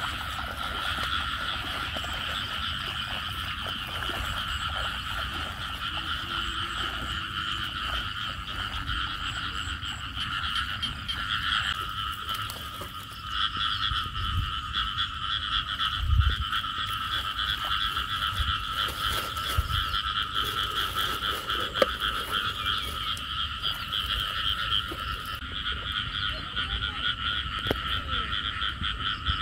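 Dense chorus of many frogs calling at once, a steady fast-pulsing trill in two pitch bands, typical of frogs breeding in flooded fields after heavy rain. A few low bumps sound over it, the loudest about halfway through.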